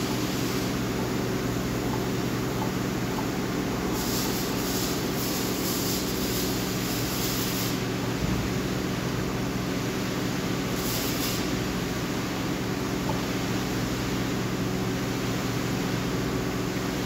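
Steady drone of running machinery with a constant low hum, and a hiss that swells for a few seconds about four seconds in and again briefly near eleven seconds.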